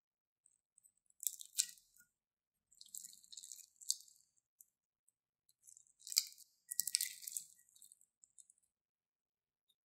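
Clear slime mixed with foam star pieces being squeezed and stretched by hand, giving high, sticky crackling and popping noises in four short bursts with silent gaps between.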